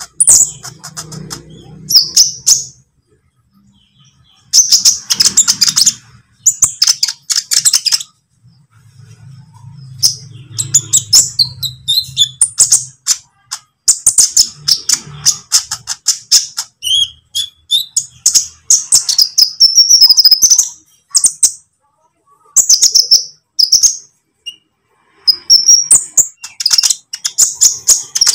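Olive-backed sunbird (kolibri ninja) singing: loud, high-pitched chirps and rapid twittering trills in bursts separated by short pauses, with a low hum under some of them.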